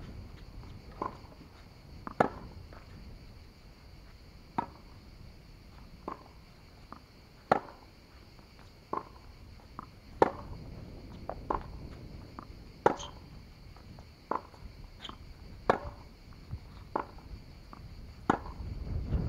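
Tennis rally on a hard court: racket strings striking the ball back and forth about every 1.3 seconds, the near player's shots loud and sharp, the opponent's returns across the net fainter.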